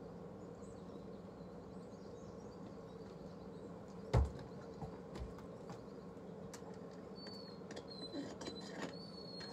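Quiet background with a steady low hum and a single dull thump about four seconds in. Faint high chirps come in near the end.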